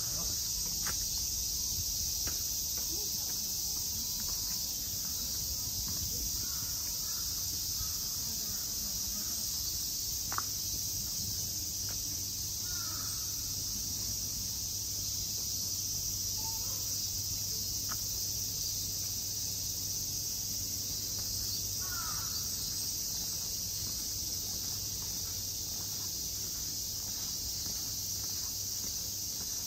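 Steady high-pitched insect chorus with a few faint bird calls now and then, a single sharp click about ten seconds in, and a low steady hum in the second half.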